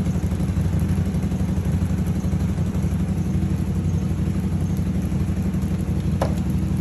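A vehicle engine idling steadily with a low, even rumble, and a single brief clink about six seconds in.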